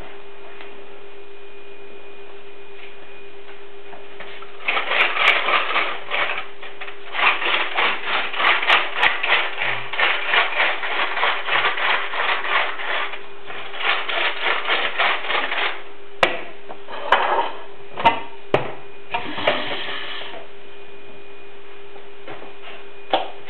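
Kitchen items being handled at a worktop: a long run of quick, rhythmic rattling strokes, then a few scattered sharp knocks and clicks, over a steady low hum.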